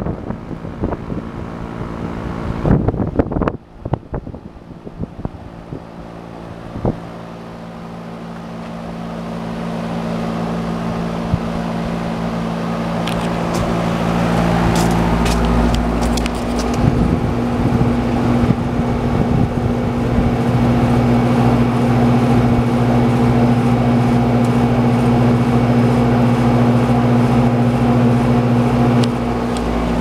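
Amana heat pump outdoor unit running: a steady hum from the compressor and its four-blade condenser fan. The hum grows louder a few seconds in and stays steady after that. A few knocks come in the first seconds.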